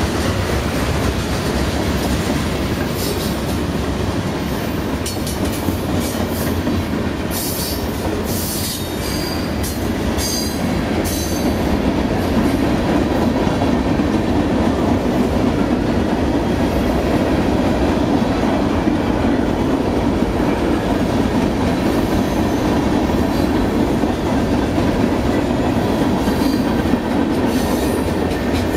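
Freight cars of a CSX manifest train rolling past: flatcars, gondolas and tank cars, with a steady rumble of steel wheels on rail. Brief high-pitched wheel squeals come several times in the first half and again near the end.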